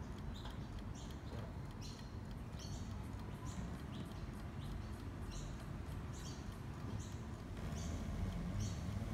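Singing birdcage clock's mechanical songbird chirping: short, high, squeaky whistled chirps repeating irregularly about one or two a second, over a low rumble.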